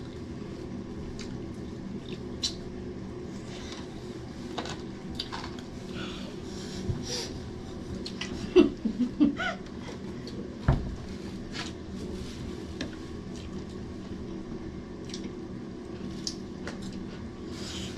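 Close-up eating sounds of people eating with their hands: chewing, lip smacks and small clicks and rustles from fingers in rice on a plastic sheet, scattered over a steady low background hum, with a few louder clicks around the middle.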